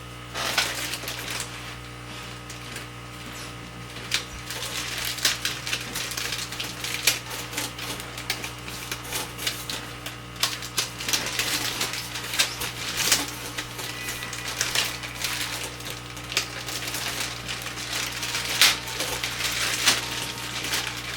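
Packing materials of a live-fish shipping box being handled and unpacked: irregular crackling, crinkling and clicking, over a steady low hum.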